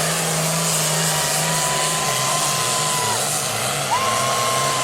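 Super farm class pulling tractor's turbocharged diesel engine running: a steady low drone under a loud hiss, with a high whine that slides up and holds twice, once from about half a second in and again near the end.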